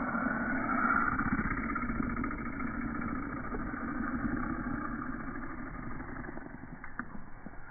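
A motor vehicle engine running steadily, slowly fading away.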